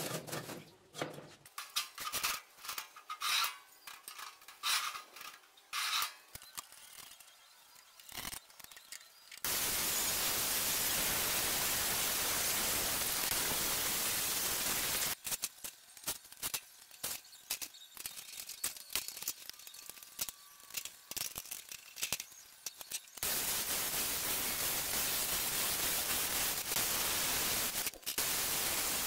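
Electric arc welding on steel: two long stretches of steady crackling hiss, with sharp metal taps and clicks before and between them.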